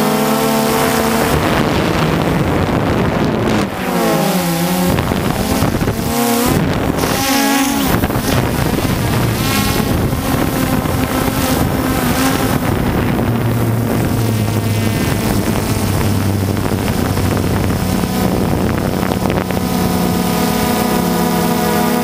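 DJI Phantom 2 quadcopter's four electric motors and propellers whining in flight, heard close up from the camera on board. Several tones slide up and down in pitch together as the motors keep changing speed to hold position, over a steady rush of wind on the microphone.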